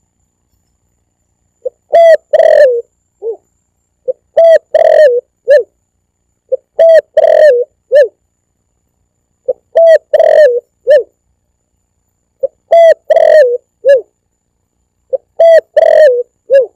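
Spotted dove (tekukur) cooing, loud: the same phrase repeats six times, about every three seconds, each a short note, two longer coos and a short closing note. It is played as a lure call to draw in spotted doves.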